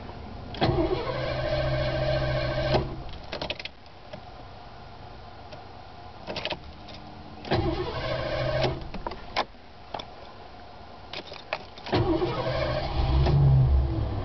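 Starter motor cranking the Lincoln Town Car's 302 V8 three times, each try lasting about one to two seconds, with sharp clicks between the tries; the engine is hard to start.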